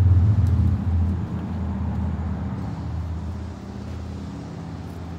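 A low rumble, loudest in the first second or so and slowly easing off.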